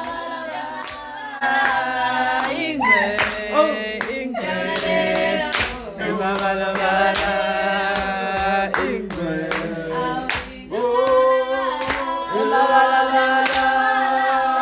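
Several voices singing a traditional Zulu dance song together, with sharp hand claps keeping a steady beat.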